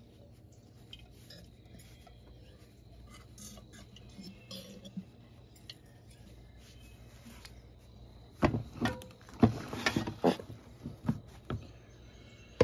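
Faint handling sounds as a new automotive AC compressor is held upside down over a plastic measuring cup to drain its oil. In the last few seconds, several sharp knocks and clunks as the compressor and cup are moved and set down.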